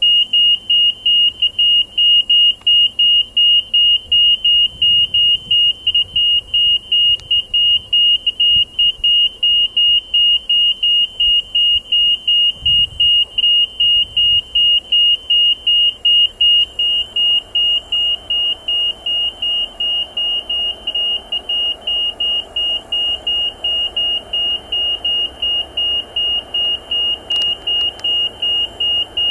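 Level-crossing warning beeper sounding rapid, evenly spaced high electronic beeps. It starts abruptly as the crossing activates, warning of an approaching train. In the second half the low rumble of the approaching Siemens ER20 diesel freight locomotive rises faintly underneath.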